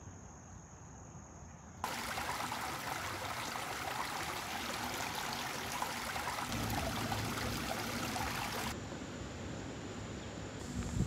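A small rocky stream trickling and splashing over stones. The steady rushing starts suddenly about two seconds in and drops away near the end, with a low rumble under it in the later part.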